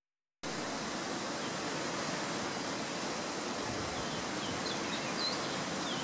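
Steady outdoor hiss of background noise, with a few faint, short high bird chirps about four to six seconds in. The sound cuts out for a moment at the very start.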